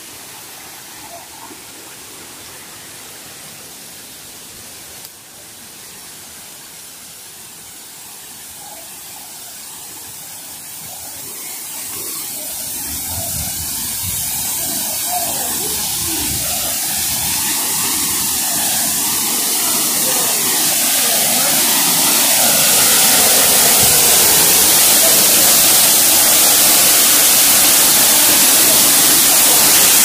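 Waterfall's rushing water, a steady hiss that swells from about a third of the way in and levels off, much louder, about three-quarters through.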